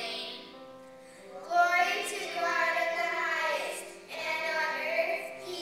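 Children singing with musical accompaniment. Two sung phrases: the first starts about a second and a half in, and the second just after four seconds.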